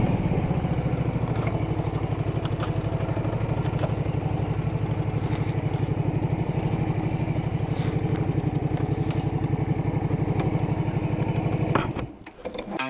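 Honda Shadow 125's small V-twin engine running at low revs with an even pulse as the bike rolls slowly over cobbles and stops. The engine sound cuts off near the end.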